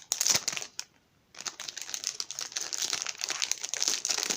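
Thin plastic wrapping crinkling as a speed cube is unwrapped from it, with a brief pause about a second in before the crinkling carries on.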